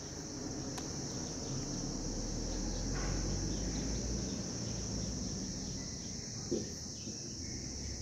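Continuous high-pitched insect trill, steady and unbroken, over a low rumble.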